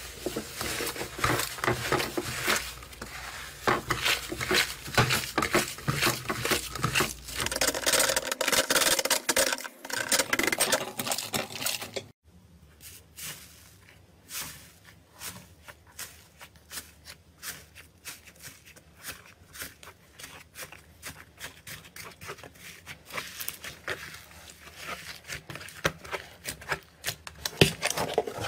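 Hands squeezing and pulling a purple slime, with dense wet crackling and clicking. After a cut about twelve seconds in, fingers press the dried crust of a red iceberg slime in a plastic tub, giving quieter, sparser crunchy clicks that grow denser near the end.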